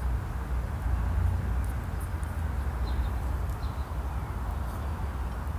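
Steady low rumble and hiss of outdoor background noise, with a few faint short bird chirps.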